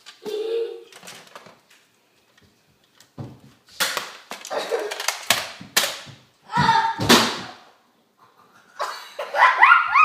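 Children giggling and squealing over a run of sharp knocks and clatter, with a high rising squeal near the end.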